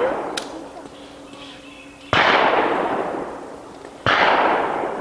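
Two pistol shots about two seconds apart, each with a long decaying echo, and a faint metallic ring from a steel target plate being hit.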